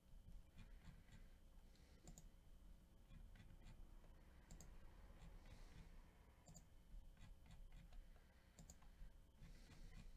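Faint computer mouse clicks at irregular intervals, a second or more apart, over a faint steady hum.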